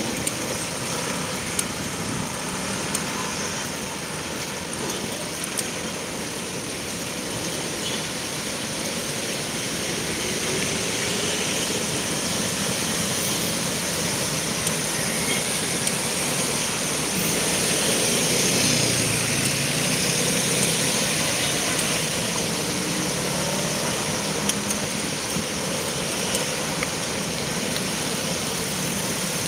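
City road traffic heard from a moving bike: a steady rush of road and wind noise, with car and truck engines running in the lanes alongside. It swells a little about two-thirds of the way through.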